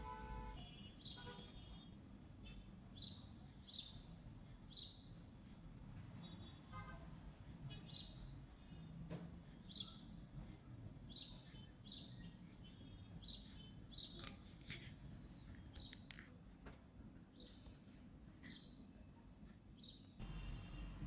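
A small bird chirping repeatedly, faint short high calls that slide down in pitch, about one or two a second, over a low steady hum.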